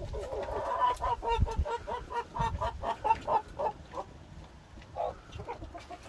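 Chickens clucking in a quick run of short calls through the first four seconds, thinning out to a few calls after that.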